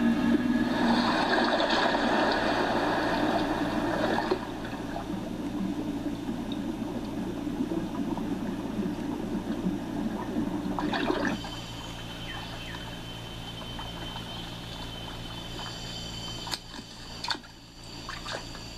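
Water rushing and sloshing, louder for the first eleven seconds and then dropping away suddenly, with a few splashes near the end.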